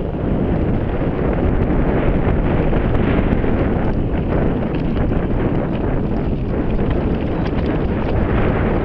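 Wind buffeting an action camera's microphone as a mountain bike rolls fast down a dirt singletrack, mixed with tyre rumble and many small rattles and clicks from the bike over the rough ground.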